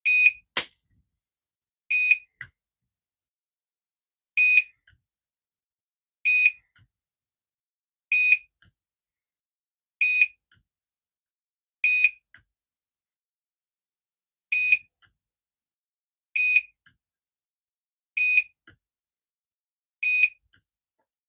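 Handheld DIY spot welder board beeping as it fires to weld nickel strip onto 18650 lithium-ion cells: a short high beep about every two seconds, eleven in all, with a sharp snap from a weld just after the first beep and fainter clicks after a few of the others.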